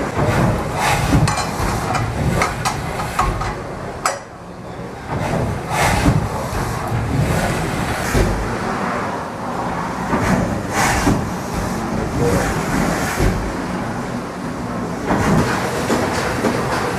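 1812 Boulton & Watt steam beam engine working, with irregular clanks and knocks from its moving beam and parallel motion over a steady low rumble. One sharp knock about four seconds in.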